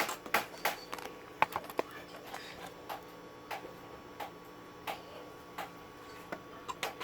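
A string of small, irregular clicks and taps, like tools and parts being handled on a TV circuit board during repair work.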